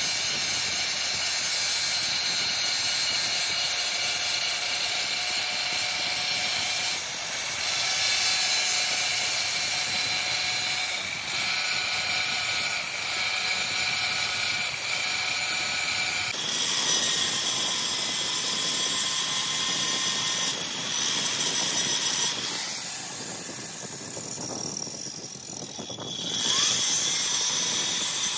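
Angle grinder with an abrasive disc grinding a steel differential spider shaft in a lathe: a steady high whine with grinding hiss. The pitch shifts about halfway through, and the grinding eases off briefly near the end before biting again.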